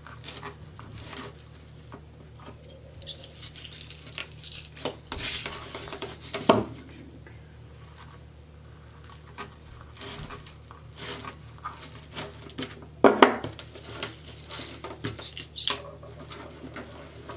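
Plastic deco mesh rustling and crinkling as it is folded and scrunched by hand on a cutting mat, with scattered light clicks and taps. Two louder clatters come about six and thirteen seconds in. A steady low hum runs underneath.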